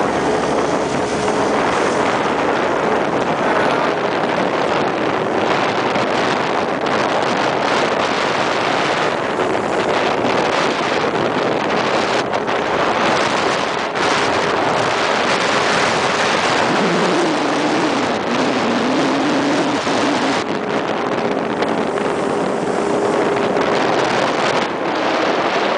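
Jet boat under way: the engine and water jet make a loud steady rush, mixed with wind on the microphone. The engine note drops partway through, then returns to its earlier pitch.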